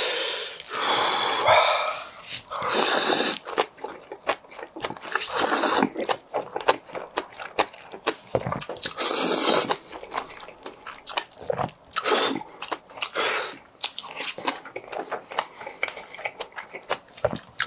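Close-up eating sounds: a man slurping noodles in several long, loud, airy slurps, with wet chewing and small mouth clicks in between.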